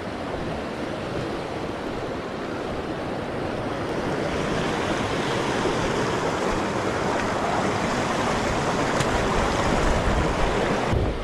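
Fast mountain river rushing over rocks: a steady rush of white water that grows louder about four seconds in.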